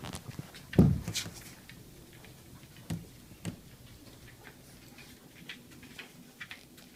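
A wolf's claws ticking and pattering on a hard hallway floor, heard in a small echoing space, with a low thump about a second in and a couple of sharp clicks a few seconds in.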